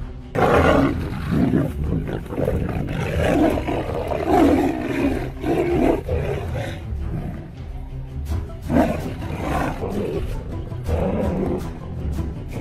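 Tiger and lion roaring as they fight, in two loud spells: one starting just after the beginning and lasting about six seconds, and another about two seconds later, with background music underneath.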